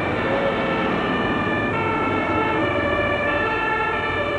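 Several German fire engines' two-tone sirens (Martinshorn) sounding at once, their alternating tones overlapping out of step, over a low rumble of engines.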